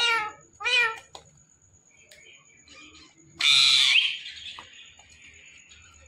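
Indian ringneck parrots calling: two short pitched calls about half a second apart at the start, then a loud, harsh screech about three and a half seconds in that trails off.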